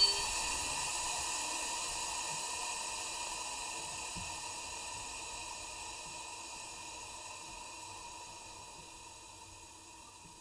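Steady hiss of compressed air from the passenger coach's air brake gear, with the coach at a standstill, fading slowly away.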